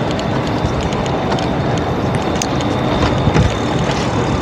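Wind rumbling over the microphone of a camera carried on a moving electric bike, with scattered light clicks and rattles.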